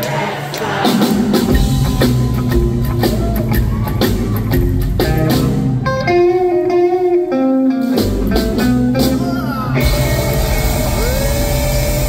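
A rockabilly trio playing live: a hollowbody electric guitar over upright bass and drums. About six seconds in, the bass and drums drop out for about two seconds of guitar alone, then the full band comes back in.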